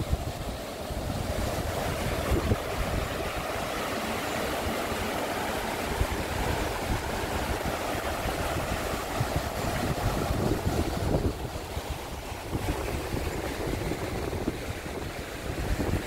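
Wind buffeting the microphone in uneven low rumbles over a steady rushing hiss.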